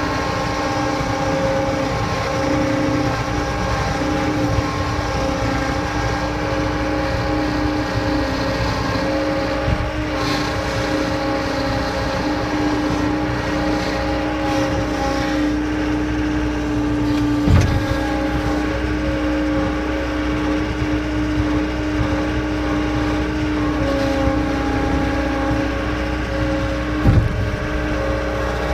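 John Deere 326E skid steer loader's diesel engine running with a steady, even hum throughout, with a couple of brief knocks from the machine, one about two-thirds of the way in and one near the end.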